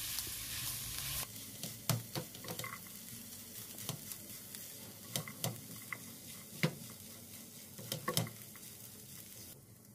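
A spoon stirring and mashing a soft potato stuffing in a pan, with irregular knocks and scrapes of the spoon against the pan. A faint steady hiss stops about a second in.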